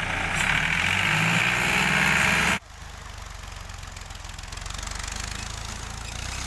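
Diesel tractor engine running steadily. About two and a half seconds in, the sound cuts off abruptly and goes on as a quieter, steady run of the same kind of engine.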